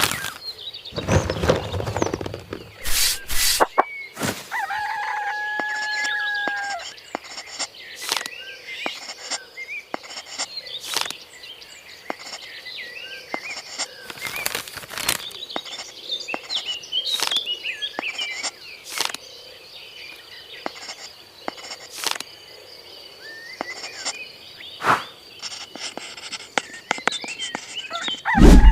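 A rooster crowing once, held for about two seconds, over scattered bird chirps, with many sharp clicks and knocks throughout.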